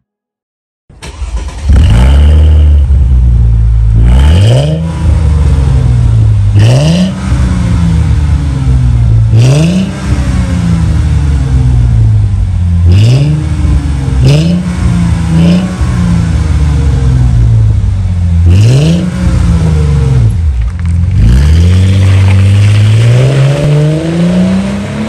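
Exhaust of a Mercedes-Benz CLK 320's V6, its catalytic converters cut out and a tuned aftermarket muffler with dual tips fitted. It comes in about a second in and is revved from idle in about seven sharp blips, each falling back slowly. Near the end the revs climb steadily as the car pulls away.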